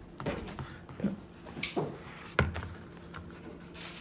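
A sealed cardboard card pack being worked open by hand, with a few dull knocks and bumps of the box on a stone countertop. About one and a half seconds in there is a short, sharp scratch or rip of the packaging, and the loudest knock follows just after.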